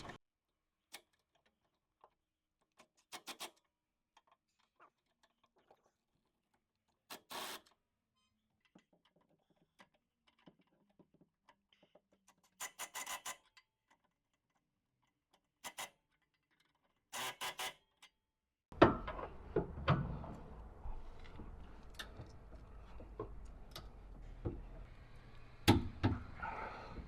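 Ratchet wrench on a 17 mm socket clicking in short bursts as a suspension bolt is turned. About two-thirds of the way through, a steady low hum starts, with scattered knocks of tools and metal.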